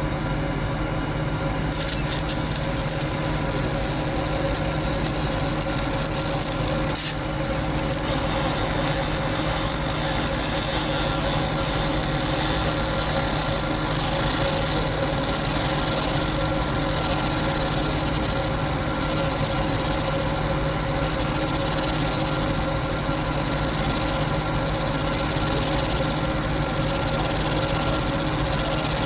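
A steady machine hum holding several fixed tones, with a hiss joining about two seconds in and a single click a few seconds later.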